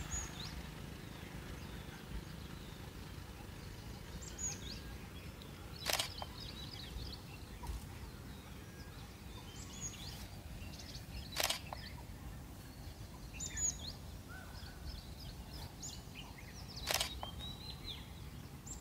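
Quiet outdoor ambience with small birds chirping in short, high, falling calls, and three sharp clicks spaced about five and a half seconds apart.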